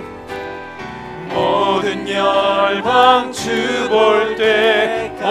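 Worship music: long sung notes with vibrato over instrumental accompaniment, quieter for about the first second and then swelling.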